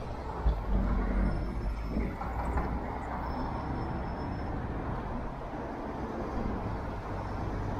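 Road traffic on a busy city street: a steady low rumble of passing motor vehicles, louder in the first second or so.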